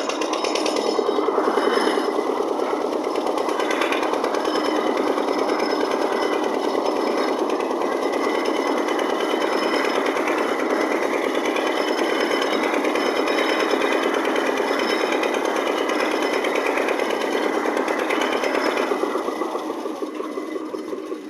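Concrete mixer machine running with a loud, rapid rattling, easing off near the end.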